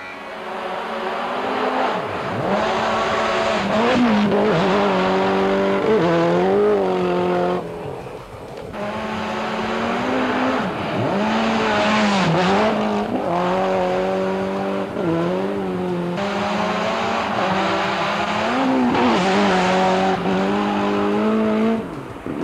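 Nissan rally car's engine at full throttle on a gravel stage, its pitch repeatedly climbing and then dropping sharply with each gear change, over and over through several runs.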